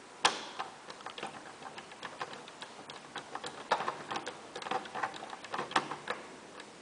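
Small, irregular clicks and ticks of a screwdriver driving a motherboard screw into a brass standoff, with one sharper click about a quarter second in.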